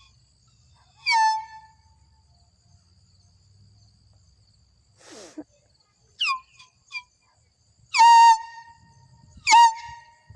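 Handheld canned air horn blown in bursts. There is one blast about a second in, three quick short toots around six to seven seconds, then two longer, louder blasts near the end. Each starts with a quick drop in pitch and then holds a steady tone.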